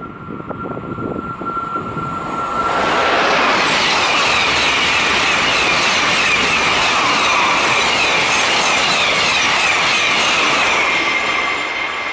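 TGV Réseau high-speed trainset passing at speed: a rush that builds over the first few seconds, stays loud for about eight seconds as the cars go by, and dies away near the end. Wind buffets the microphone as it approaches.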